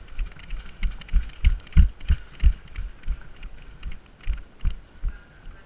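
Irregular low thuds, about two to three a second, with light clicks and rattles: footsteps and jolting gear knocking against a body-worn camera.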